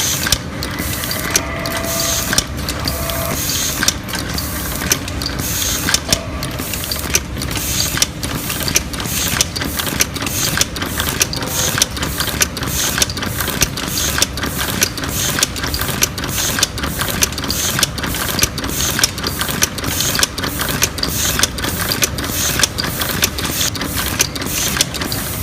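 Automatic chain-making machine running, with sharp mechanical clicks about three every two seconds over a continuous clattering hum.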